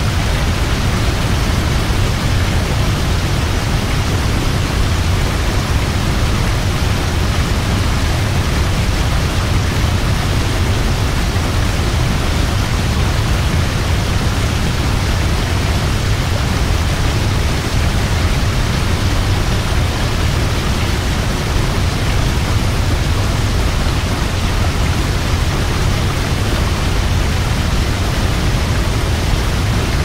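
Large waterfall: a loud, steady rush of falling water, deepest in the low range, with no change throughout.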